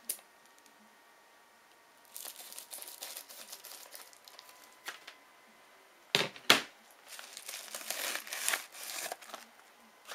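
A mail package being opened by hand: its packaging tearing and crinkling in bursts, with two loud knocks about six seconds in.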